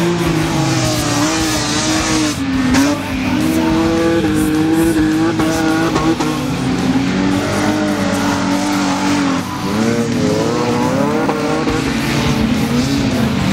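Several stock-car engines running hard as the cars race around a dirt track, their pitches overlapping and rising and falling as the cars accelerate and slow.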